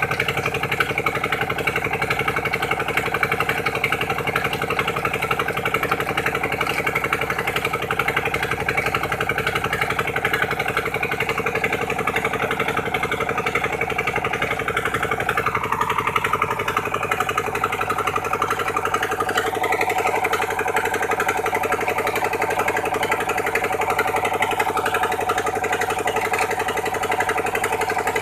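Engine of a sand-suction pump machine running steadily, its note shifting about halfway through.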